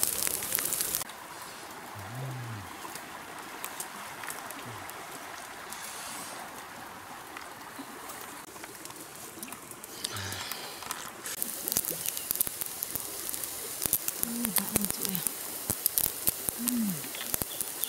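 Open wood fire crackling and snapping under a fish grilling on a bamboo rack, loudest at the start and again over the last few seconds. In between it drops to a quieter rustle of fern leaves, with a few short bits of voice.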